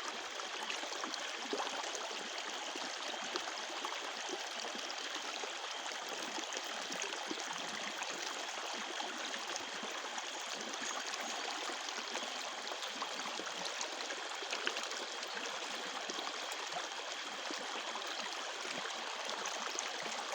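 Running water, a steady unbroken rush, with crickets chirping in a thin, steady high band above it.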